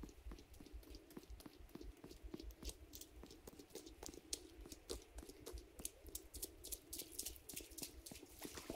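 Faint, irregular ticks and crackles that grow thicker after a few seconds, over a low wind rumble.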